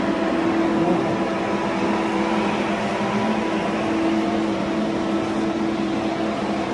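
Graco FinishPro air-assisted airless paint sprayer running steadily: a constant machine hum with a hiss underneath.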